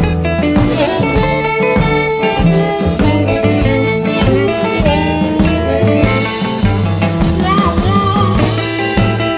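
Electric Texas blues band playing an instrumental passage, a harmonica lead over electric guitar, bass and a steady drum beat.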